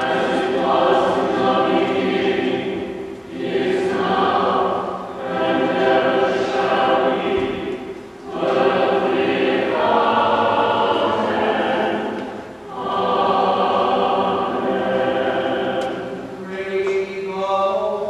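Church choir singing in sustained phrases, with short pauses for breath between them.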